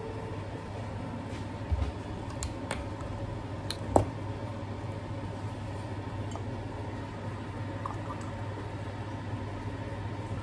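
A few light clicks and knocks from handling things around a glass mug of coffee on a kitchen counter, the loudest about two and four seconds in, over a steady low hum.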